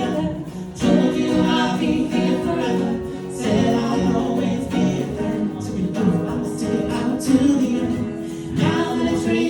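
Music: a group of voices singing in choral harmony.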